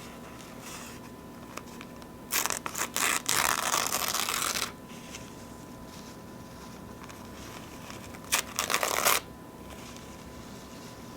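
Paper napkins being torn close up: a long tear about two seconds in, then a shorter one near the end, with faint napkin rustling between.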